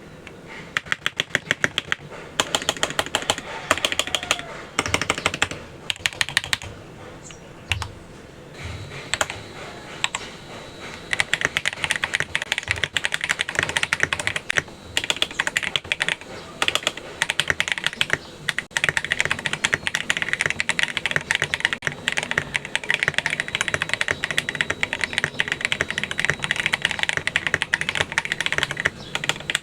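Typing on a Tecware Veil87 mechanical keyboard with lubed Akko CS Crystal switches and SA keycaps: fast, dense keystrokes. There is a slower stretch of single keystrokes and a few deeper thuds around seven to ten seconds in.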